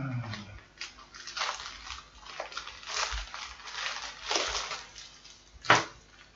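Small plastic shipping bag crinkling and rustling in irregular bursts as it is pulled and torn open by hand, with one sharper, louder crack near the end.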